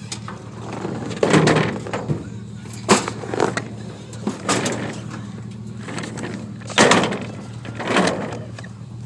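Clanks, bangs and scrapes of scrap items being shifted and set down on a metal diamond-plate trailer deck, about half a dozen sharp knocks spread out over a steady low hum.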